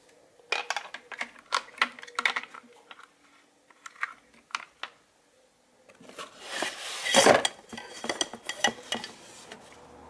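Hard plastic vacuum-cleaner attachments clicking and clattering as they are handled over a cardboard box. About six seconds in, a longer, louder stretch of rustling and scraping as hands rummage in the box among the coiled cable and a fabric pouch.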